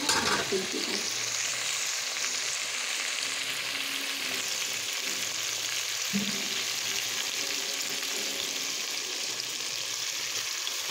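Chicken pieces frying in hot oil in a metal pot, a steady sizzle, with a short clatter at the start.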